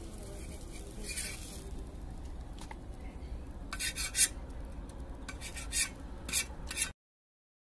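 Several short scrapes and rasps of a metal pan and utensils being handled on a clay stove, one with a brief metallic ring, over a steady low rumble. The sound cuts off abruptly near the end.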